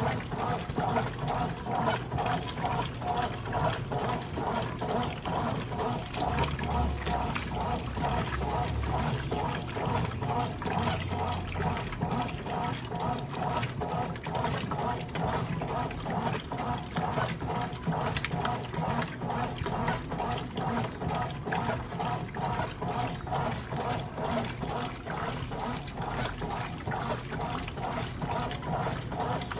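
Brastemp Clean washing machine working with water: a steady splashing and rushing of water inside the tub. A low hum joins in for a few seconds.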